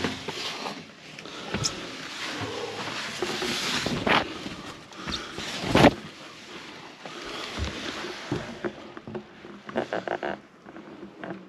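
Plastic tarpaulin rustling and crinkling as someone squeezes past it, with scattered knocks and bumps; the loudest knock comes about six seconds in, and a quick run of taps follows near the end.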